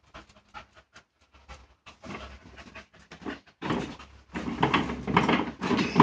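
A puppy panting hard, with scattered light clicks at first and a louder, rougher stretch of breathing and scuffling in the second half.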